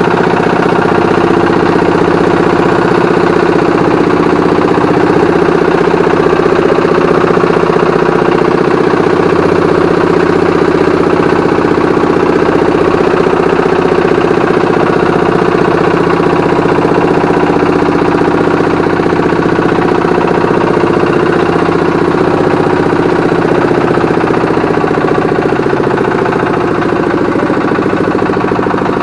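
Boat engine running steadily and loudly at an even speed.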